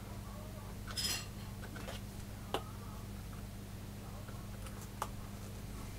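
A few small clicks and clinks as an oscilloscope probe and its clip are handled on a workbench: a short rattle about a second in, a sharp click about halfway and a lighter one near the end. A steady low electrical hum runs underneath.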